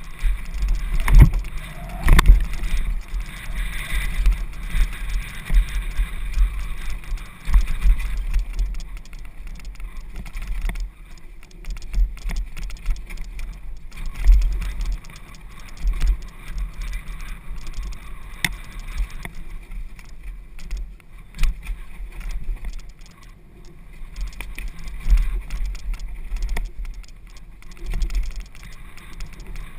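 Downhill mountain bike running fast over a dirt forest trail, its tyres rolling over the ground and the bike rattling, with sharp knocks from bumps, the loudest about 1 and 2 seconds in. Heavy wind rumble on the GoPro's microphone runs under it all.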